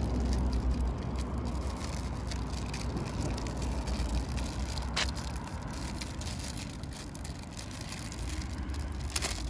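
Steady low outdoor rumble of background noise, with two sharp clicks, one about five seconds in and one near the end.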